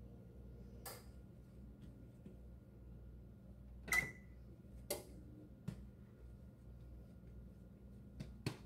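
A few scattered soft taps and clicks as a ball of bread dough is handled and shaped by hand, the loudest about four seconds in with a brief high ring, over a steady low hum.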